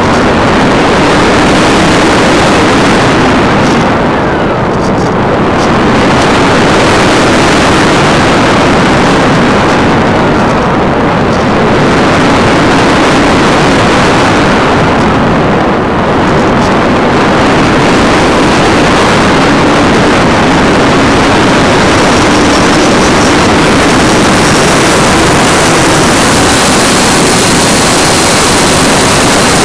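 Steady loud rush of airflow and electric motor-and-propeller noise heard from a camera mounted on a foam RC model plane in flight. The hiss eases briefly three times, as the plane slows or changes attitude.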